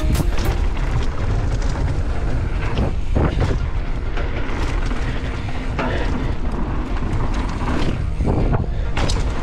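Mountain bike being ridden: a steady low rumble of tyres and wind on the microphone, with a few short clatters about three, six and eight and a half seconds in.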